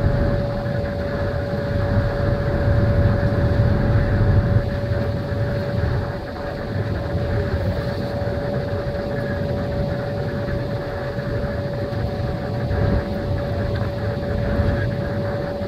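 Boat engine running steadily under way: a constant whine over a low, uneven rumble.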